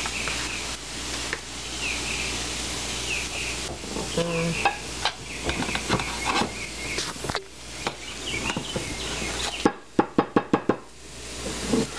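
Breaded cod fillets sizzling as they pan-fry, under scattered soft knocks and handling noises from coating fish on plates. Near the end comes a quick run of about seven sharp taps.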